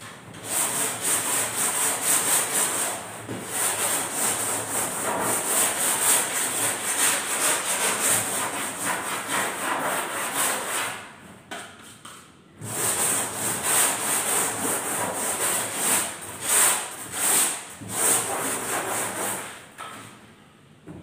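Hand sanding block rubbed back and forth over a Styrofoam boat hull, shaping the foam: a continuous rasping scrub that stops for about a second and a half a little past halfway, then picks up again in more distinct strokes before stopping near the end.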